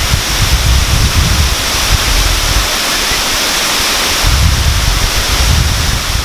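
Loud, steady rush of water pouring over a dam spillway like a waterfall, with wind buffeting the microphone in low gusts at the start and again about four seconds in.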